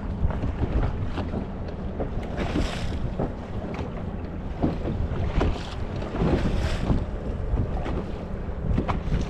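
Wind buffeting the microphone aboard a fishing boat, with a steady low rumble and water splashing and slapping against the hull in irregular bursts, two larger hissing splashes a few seconds apart.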